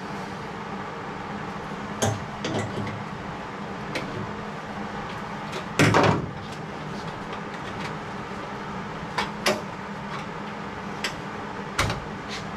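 Scattered knocks and clunks of metal tools and parts being handled, about eight in all, the loudest about six seconds in, over a steady shop hum. There is no welding.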